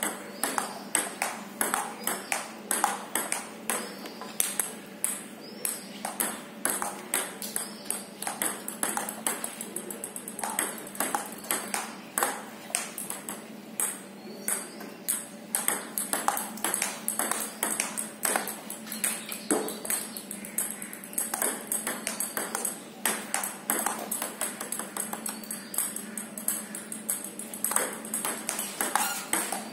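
Table tennis ball clicking off paddles and the table in a running practice rally, with sharp clicks coming a few times a second.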